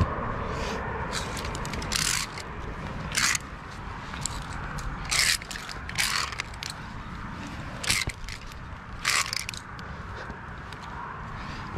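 Via ferrata carabiners and hands scraping and clinking on the steel safety cable in several short, sharp bursts, over a steady low rumble of wind and handling noise on the microphone.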